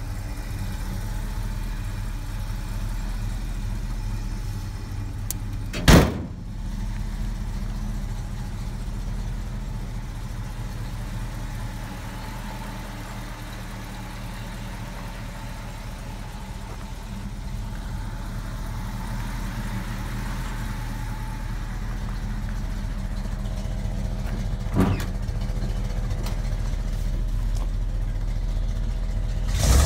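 Ford F-250's 390 cubic inch V8 idling steadily, with one sharp knock about six seconds in and smaller knocks near the end.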